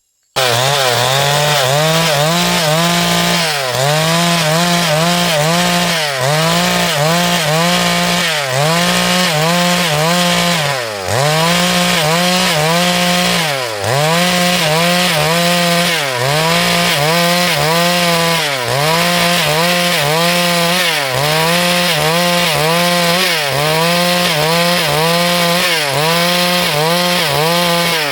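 Two-stroke chainsaw running at high revs while cutting lumber from a log, its engine pitch sagging briefly and recovering about every two and a half seconds. Near the end the revs drop away.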